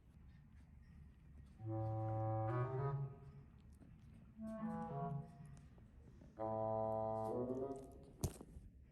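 Background music: a wind instrument plays three short held phrases, each bending in pitch at its end. A single sharp click comes near the end.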